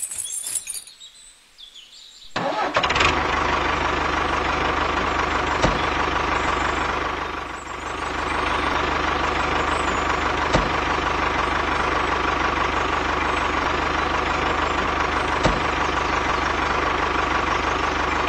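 A metal chain clinks briefly at the start. About two and a half seconds in, a tractor engine starts up and then runs steadily at idle, dipping briefly in level once near the middle.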